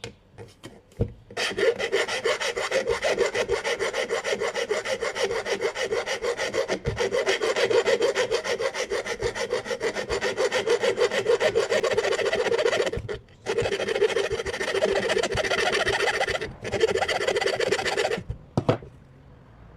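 Rapid back-and-forth abrasive strokes by hand on a steering wheel, like sanding or rasping, going on in an even rhythm. They pause briefly twice and stop near the end.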